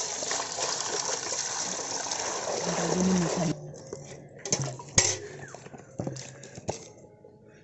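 Water pouring from a pot into a metal basin in a steady rush that cuts off suddenly about three and a half seconds in. Then a few separate splashes as brinjals are dropped into the water.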